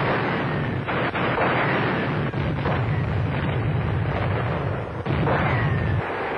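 Artillery fire and shell explosions: a dense, continuous din of blasts, with sharp new blasts at the start, about a second in, and about five seconds in.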